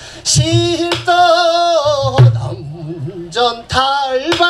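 Male pansori singer holding and bending long sung notes with a wide, wavering vibrato, accompanied by a few sharp buk drum strokes.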